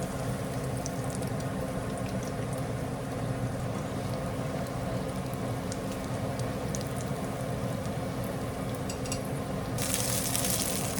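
Croquettes frying in hot oil: a steady sizzle with scattered small pops of spattering oil, and a sudden louder, brighter hiss coming in near the end.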